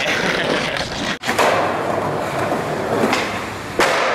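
Skateboard wheels rolling over rough pavement, with a fainter knock about three seconds in and a sharp, loud clack of the board hitting the ground near the end.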